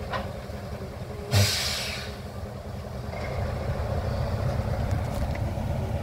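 MDHB No. 45, a Hudswell Clarke diesel shunting locomotive, running slowly toward the listener, its engine a steady low rumble that grows louder in the second half. About a second in comes a short, loud hiss of released air.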